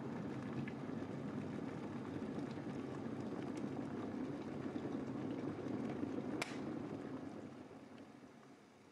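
Electric kettle heating toward the boil with a steady rumble. About six and a half seconds in there is a sharp click, like the kettle switching off, and the rumble then dies away.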